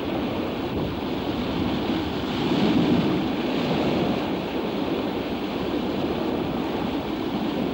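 Sea surf washing against the rocks at the foot of a sea stack, a steady rushing that swells slightly about three seconds in.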